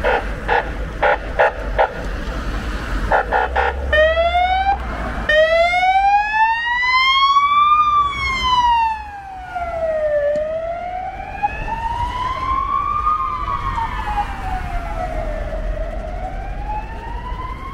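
Emergency vehicle siren. It opens with a rapid pulsing tone for about the first four seconds, then changes to a wail that sweeps slowly up and down in pitch, about once every five seconds. It is loudest as the blue-lit van passes about eight seconds in.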